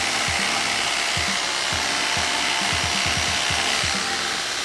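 Electric hair clippers buzzing steadily as they cut hair at the sideburn and beard line.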